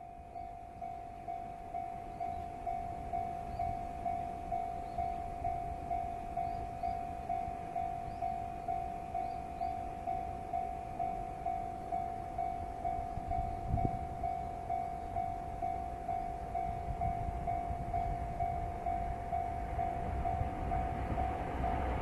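Japanese level-crossing alarm ringing its steady electronic 'kan-kan' bell, about two strikes a second, warning of an approaching train. Near the end the rumble of the approaching train rises beneath it.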